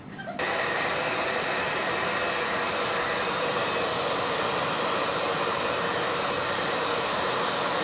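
Handheld electric hair dryer blowing steadily on a German Shepherd's fur. It starts abruptly about half a second in, then holds a constant, even whoosh.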